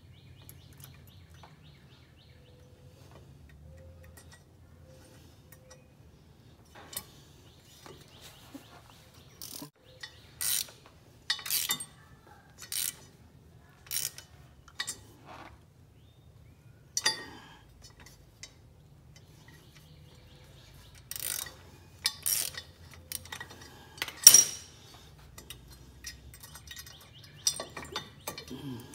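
Hand tools and steel bolts clinking and clicking while the bolts of a compact tractor's hydraulic pedal return bracket are worked in and out by hand: a string of sharp, separate metallic clinks, irregularly spaced, the loudest a little before the end.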